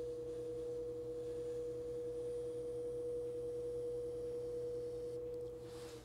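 Electric potter's wheel motor running with a steady whine, which drops in pitch and stops near the end as the wheel is brought to a halt.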